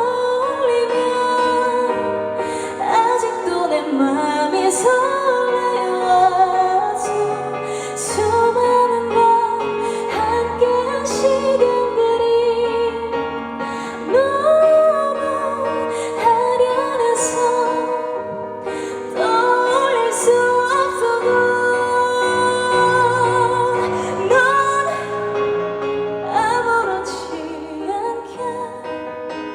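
A woman singing a ballad live with band accompaniment through a concert sound system, her held notes wavering with vibrato. The amplified sound is loud enough to distort on the recording.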